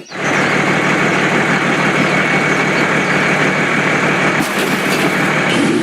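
Mini tractor's engine running steadily, a loud even drone with a low rumble. It starts abruptly as the music cuts off.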